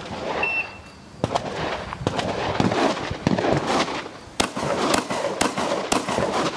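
A shot timer's short electronic beep about half a second in, then a string of shotgun shots during a practical shotgun stage: a few spaced shots, then four quick shots about half a second apart in the second half.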